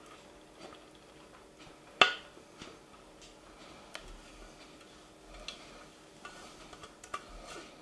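Spatula scraping and tapping inside a stainless-steel Thermomix mixing bowl as the last of the dressing is scraped out: scattered light clicks and knocks, with one sharper knock about two seconds in.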